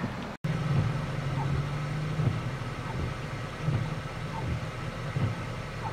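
Vehicle engine idling with a steady low hum, after a brief gap near the start. Faint short high blips come about every second and a half.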